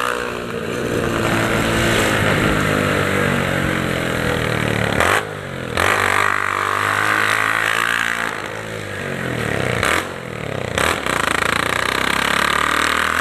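Honda Titan 150's single-cylinder four-stroke engine running loud through a straight-through exhaust pipe while being ridden. The revs climb and fall, and the sound drops away briefly twice, about five and ten seconds in.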